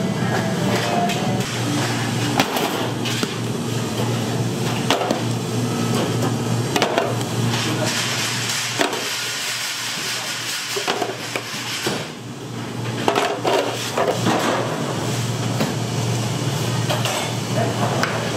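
Bakery kitchen work: a steady machine hum under scattered, irregular knocks and clatter.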